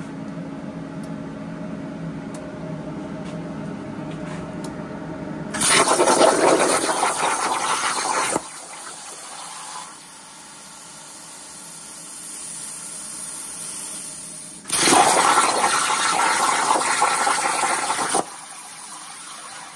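Everlast 82i plasma cutter on a CNC table: a steady hum from the machine, then two loud hissing stretches of the plasma arc and compressed air, each about three seconds long, starting about six seconds in and about fifteen seconds in, as the torch pierces and cuts steel plate.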